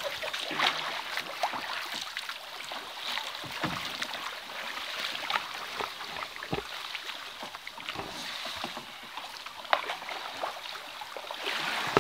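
Kayak paddles dipping and splashing in a slow river current, with water rushing along the plastic hull and scattered short knocks. The water noise swells briefly near the end.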